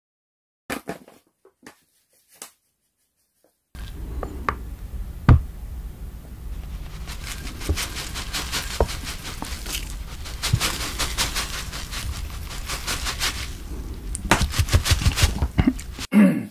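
Red pepper flakes (gochugaru) shaken out of a plastic bag onto a bowl of ramen: rapid runs of rustling, pattering taps. This starts about four seconds in, after near silence with a few faint clicks.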